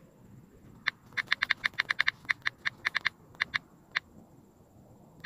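Typing on a smartphone's on-screen keyboard: one click, then a quick run of sharp key-press clicks at about eight a second for two seconds, then a few spaced clicks.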